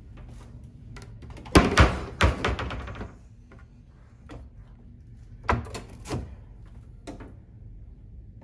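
A wooden cabinet door and the compartment doors of a small fridge-freezer behind it being opened by hand. Two loud clunks with a brief rattle come about a second and a half in, then two more knocks a little past the middle.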